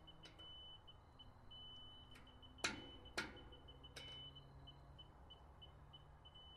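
Laser level receiver on a grade rod beeping: short high beeps come at changing speed and at times join into an unbroken tone, the receiver signalling how close it sits to the rotary laser's beam. Two sharp knocks a little under three seconds in, about half a second apart.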